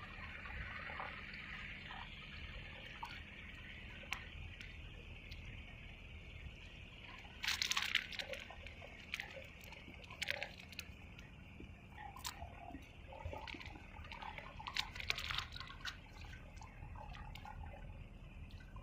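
Small sea waves lapping and sloshing, with scattered drips and splashes; the louder splashes come about halfway through and again near three-quarters of the way.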